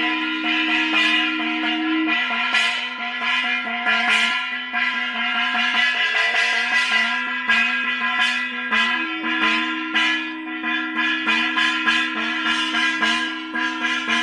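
Puja bells and a gong rung rapidly and continuously, about three or four strikes a second, their ringing overlapping. Under them a steady held low tone breaks off about two seconds in and comes back about nine seconds in.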